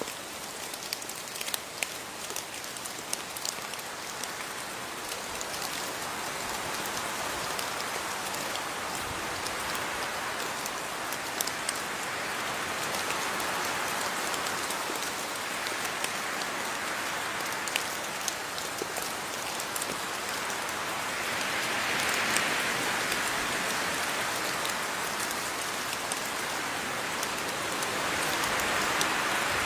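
Steady rain falling, with a dense hiss and individual drops ticking sharply on a surface. The downpour swells a little heavier about two-thirds of the way through and again near the end.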